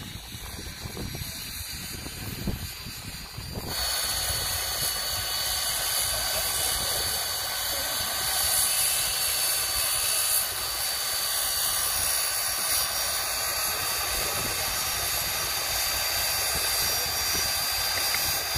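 A corded power saw runs steadily, cutting plywood: a constant high whine over a loud rushing noise that starts abruptly about four seconds in. Before that there is only quieter outdoor background.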